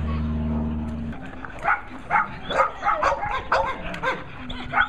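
A dog barking rapidly at a decoy in a bite suit during protection training, about three short barks a second, starting after the first second and a half. Before the barking, a steady low hum sounds for about a second and cuts off.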